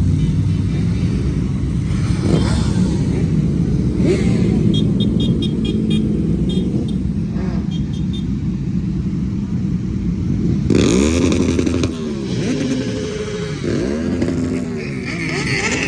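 Motorcycles riding past on a road with loud engines over a steady traffic rumble. Several go by in the last few seconds, their engine pitch rising and falling as they pass.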